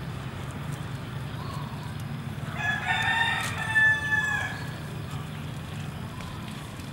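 A rooster crowing once: a single crow of about two seconds, starting about two and a half seconds in.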